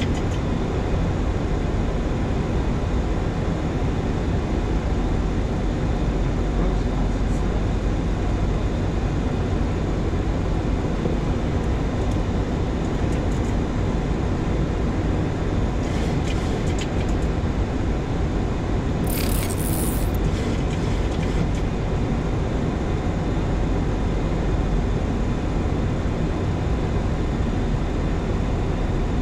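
Steady rushing flight-deck noise of a Boeing 737-800 in flight on approach, with a brief high hiss about two-thirds of the way through.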